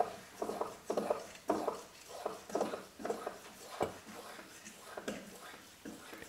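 Glass mason jars being handled while thick maple syrup is poured from one into the other, with soft irregular handling sounds and a single sharp glass clink a little under four seconds in.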